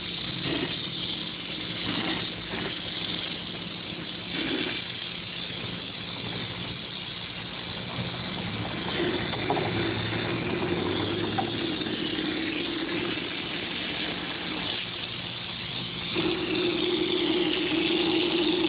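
Texture hopper gun spraying a pre-colored hard-coat finish with a steady hiss of compressed air, over the continuous hum of a running air compressor; the sound grows louder near the end.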